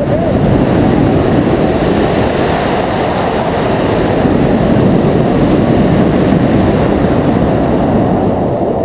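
Loud, steady wind rush on the microphone of a wing-mounted camera from the airflow of a tandem hang glider in flight.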